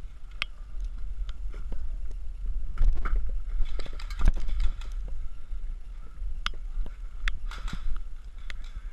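Footsteps and clothing and gear rustle of a player walking over rough, wet pavement and weeds, with a low rumble of wind on the camera microphone and a few scattered sharp clicks.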